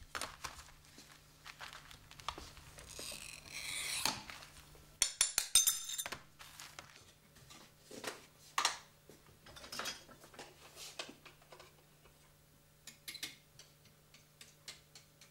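Glass cutter scoring a sheet of blue stained glass, a hissing scratch, followed by a burst of sharp clicks about five seconds in and scattered clinks and taps as the glass pieces are handled on the work table.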